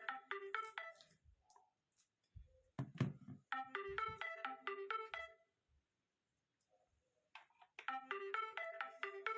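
Nokia E52 mobile phone ringing: a short electronic ringtone melody that repeats three times with pauses between. A short low thud sounds about three seconds in, between repeats.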